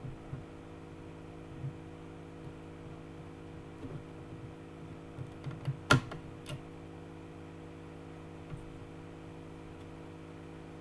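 Steady electrical mains hum with a faint high whine, broken by a few soft clicks and knocks from handling the discs of a CD box set, the sharpest about six seconds in.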